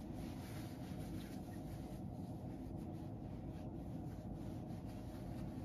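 Steady low room hum with faint, light rustling about two to four seconds in.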